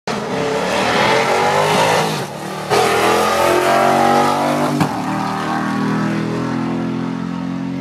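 Drag-racing car engines at full throttle down the strip, revving up in pitch, dipping briefly just after two seconds, then climbing again. After about five seconds the engine note settles lower and falls slowly as the cars pull away.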